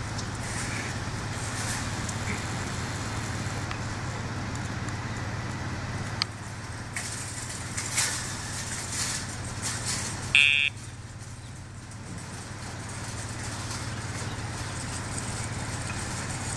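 Steady hum of car traffic in a parking lot, with a few light clicks and one short, high electronic beep about ten seconds in.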